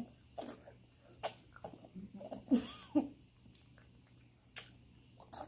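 Mouth sounds of someone eating a sauced fried chicken wing: scattered wet smacks and clicks of biting and chewing. About two and a half seconds in there is a brief rising-and-falling vocal whine.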